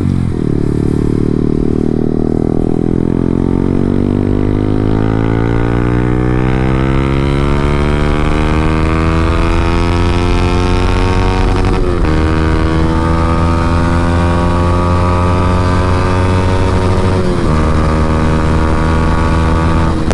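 Yamaha R15M's 155 cc single-cylinder engine through an aftermarket SC Project full-system exhaust, accelerating hard: the exhaust note climbs steadily in pitch and drops briefly at gear changes about twelve and seventeen seconds in.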